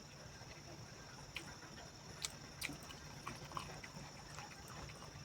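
Faint steady high-pitched chirring of insects, with a few soft sharp clicks scattered through.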